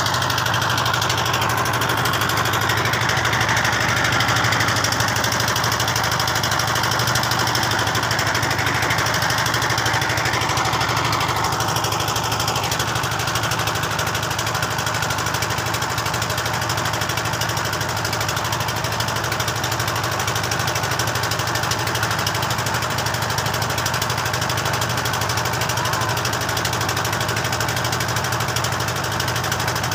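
A motorboat's engine running steadily with an even low drone, heard from on board the moving boat.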